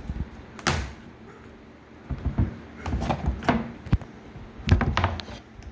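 Irregular knocks, clicks and scraping as the unscrewed rear cover of a TurboSound TFX-152M-AN coaxial stage monitor is worked loose and pulled off the cabinet, with the sharpest knock a little under five seconds in.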